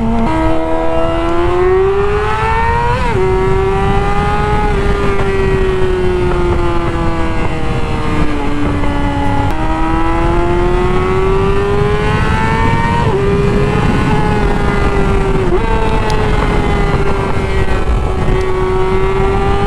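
Yamaha R6 inline-four engine running at high revs under way, its pitch climbing and falling with the throttle. The pitch drops sharply about 3 s in and jumps up near 9.5 s as gears are changed. Wind rumbles underneath throughout.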